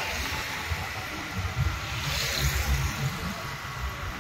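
Uneven low rumble of wind buffeting the microphone, over a steady hiss of distant traffic, with a brief rushing hiss about two seconds in.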